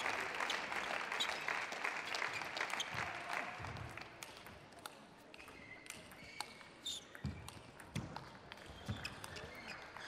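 Spectators applauding for the first few seconds, dying away. Then a table tennis ball clicks off the bats and the table in a string of short, sharp knocks as a point is served and rallied.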